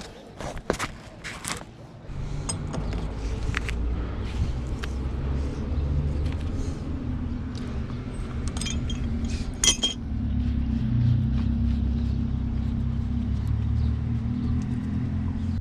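Light clinks and knocks of pipe fittings being handled, in the first two seconds and again briefly near the middle. From about two seconds in, a steady low rumble with a faint hum runs under them.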